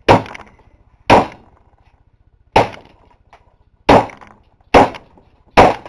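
Six irregular heavy blows, about a second apart, smashing the sheet-metal case of a computer power supply. Each strike is sharp and loud, with a short ringing tail.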